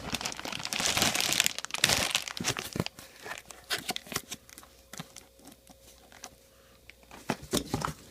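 Packing material being crumpled and torn as parts are unwrapped from a shipping box: loud crinkling for about the first three seconds, then scattered rustles and light knocks, with another short burst of crinkling near the end.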